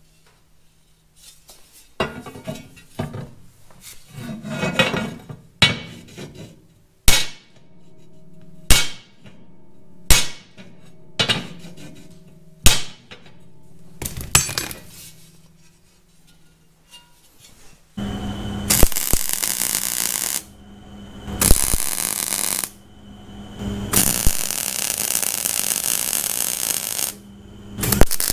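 Hammer blows on a steel tractor foot plate being straightened, about a dozen sharp ringing strikes a second or two apart. From about two-thirds of the way in, a wire-feed welder crackles in three runs as cracks in the plate are welded, the last run about three seconds long.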